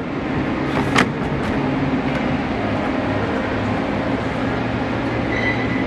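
Steady background din of a large shop: a low hum and rumble, with a single knock about a second in.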